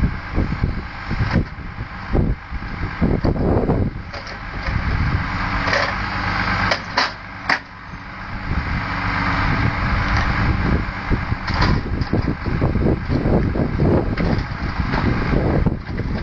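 Volvo timber lorry's diesel engine running under load while its truck-mounted Loglift crane works, with repeated knocks and clatters of pulpwood logs as the grapple grips and lifts them from the stack.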